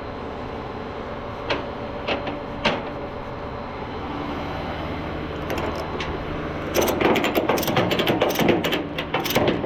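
Ratchet tie-down strap being cranked, with a few single clicks and then a fast run of ratcheting clicks starting about two-thirds of the way in. A steady low engine hum runs underneath.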